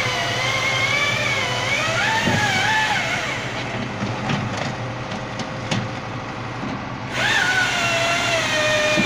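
Engine of a firewood processing machine running, its pitch wandering up and down as the load changes, with a few sharp knocks in the middle. It gets louder again about seven seconds in.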